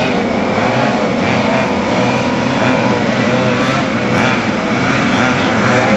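A pack of quarter-scale RC oval race cars' small two-stroke gas engines buzzing together as they lap, their pitch wavering up and down.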